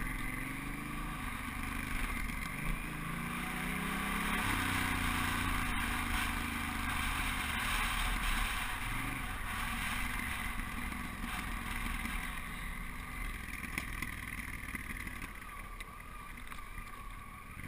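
Honda Africa Twin's parallel-twin engine accelerating, its pitch climbing in steps over the first few seconds, then running steadily at lower revs, with wind rushing over the microphone.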